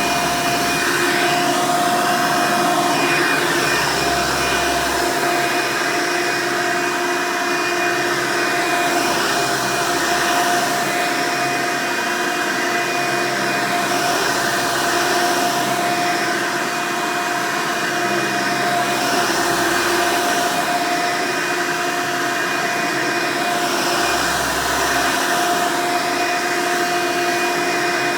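Hoover Elite upright vacuum cleaner running, its motor giving a steady, loud roar with a fixed-pitch whine.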